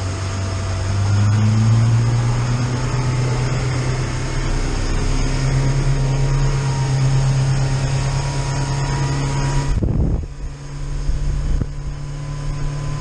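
Fishing boat's engine running under way, a steady low hum that rises a little in pitch over the first couple of seconds as it speeds up, with the rush of hull and water noise heard from inside the cabin. About ten seconds in the rushing noise cuts off suddenly, leaving a lower engine hum.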